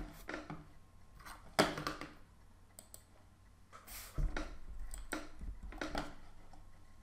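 Scattered clicks and taps from a computer mouse and keyboard on a desk, about seven at irregular intervals, the loudest a sharp knock near the two-second mark and a duller thump about four seconds in.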